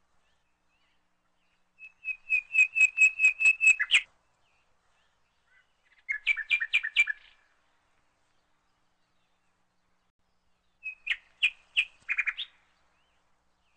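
A small songbird chirping in three short trilled phrases of quick repeated high notes, with silence between them.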